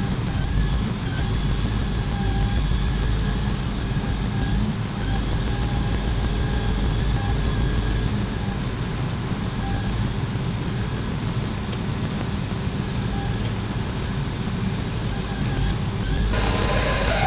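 Heavy truck's engine running steadily with a low rumble. About a second before the end, a louder rushing, hissing noise starts and breaks up in short gaps.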